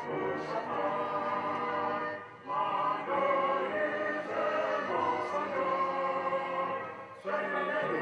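A crowd singing an anthem together in long held phrases, pausing briefly about two seconds in and again near the end.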